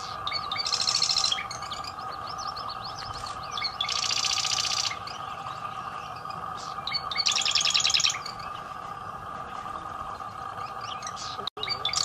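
Marsh wren singing: three rapid, buzzy rattling trills of about a second each, roughly three seconds apart, each led in by a few softer short notes, with a fourth trill starting at the very end. A steady background hum runs underneath.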